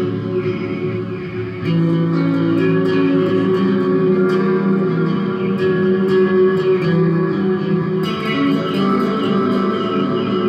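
Acoustic guitar played live on stage through the sound system, with plucked notes over held chords. It gets louder about two seconds in.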